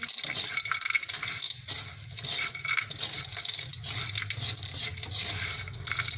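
Metal spatula scraping and tossing small fried fish and chopped chilies around a wok in quick repeated strokes, over light sizzling of hot oil. A low steady hum runs underneath.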